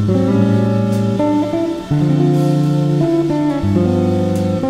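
Background music led by a plucked guitar, held notes and chords changing every second or so.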